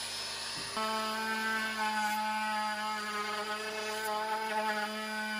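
Bosch trim router running steadily as it cuts a small roundover along the edge of a solid sequoia tabletop. Its steady, even whine steps up in loudness about a second in as the bit bites into the wood.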